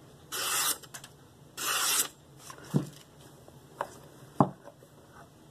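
A freshly sharpened nakiri, edged on a 320 grit stone and stropped, slicing cleanly through a sheet of paper: two papery swishes in the first two seconds. A few light knocks follow.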